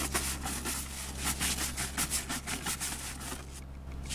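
Hand scrub brush scrubbing back and forth on the seat of a plastic patio chair: a quick run of rasping strokes that stop shortly before the end.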